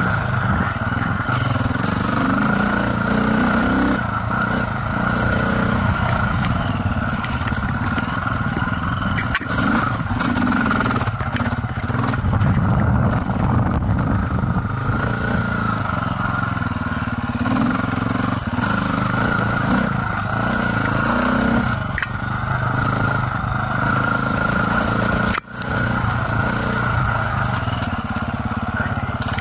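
Dirt bike engine running while riding a trail, its note rising and falling with the throttle.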